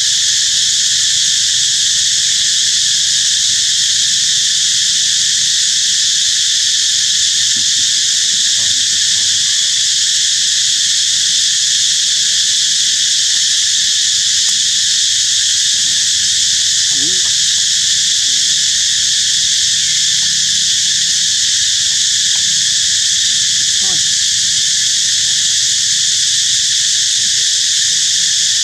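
Loud, steady chorus of insects: a high, unbroken buzz that holds the same level throughout.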